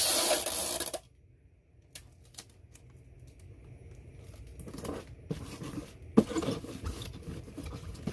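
Plastic packaging being handled: a second of loud crinkling and tearing noise that stops suddenly, then scattered rustles and clicks, the sharpest about six seconds in.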